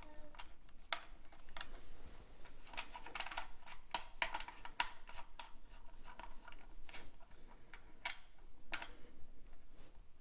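Irregular clicks, taps and light scrapes of hands working a bi-wirable speaker's binding-post terminals, unscrewing the jumper links and fitting speaker wire.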